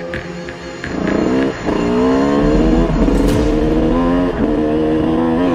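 Enduro dirt bike engine revving under way, its pitch climbing and dropping back several times as the rider opens and closes the throttle. For about the first second, music with a steady beat plays before the engine comes in.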